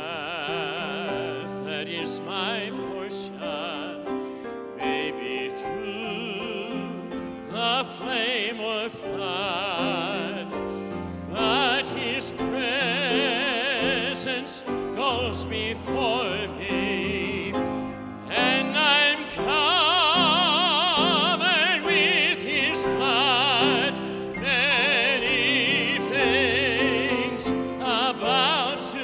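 A man singing in an operatic style with wide vibrato, accompanied by a Kawai grand piano. The singing swells and grows louder about two-thirds of the way through.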